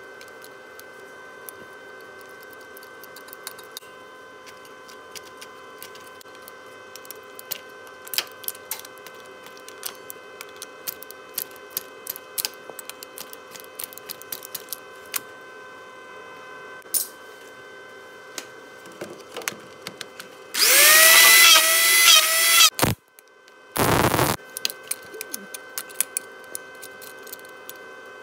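Scattered metallic clicks and clinks of locking pliers being clamped and worked on broken exhaust manifold studs in a cylinder head, over a steady humming background. About 21 seconds in comes a loud screech lasting about two seconds, its pitch wavering up and down. About three seconds later there is a short harsh burst.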